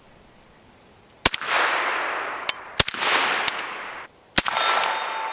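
Three suppressed rifle shots from an 11.5-inch BCM AR-15 pistol with a Surefire RC2 suppressor firing 112-grain 5.56, about a second and a half apart, starting about a second in. Each shot is followed by a long fading echo, and lighter sharp clicks come between the shots.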